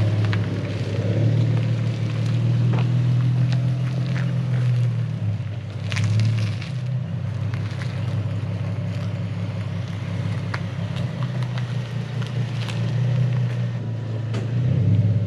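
Infiniti G37's V6 engine idling through a Z1 Y-pipe with exhaust cutouts, a steady low exhaust note. The owner hears air escaping where the cutouts join the pipe even when they are closed, which he says is probably normal.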